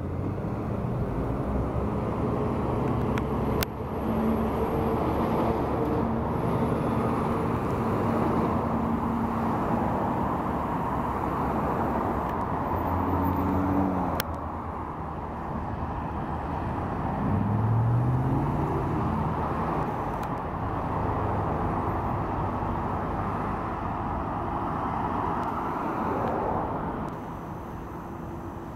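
Car traffic passing through an intersection: steady tyre and engine noise from several cars and a pickup truck, with one engine note rising about two-thirds of the way through as a vehicle speeds up. The traffic eases off slightly near the end.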